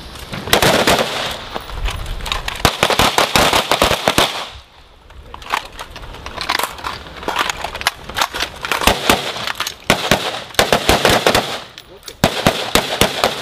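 Rapid semi-automatic rifle fire from carbines on a firing line, in quick strings of shots broken by short pauses.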